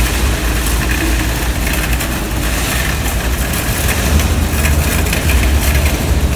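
Loaded wire shopping cart pushed across asphalt: its small wheels rolling and the metal basket rattling in a loud, steady rumble.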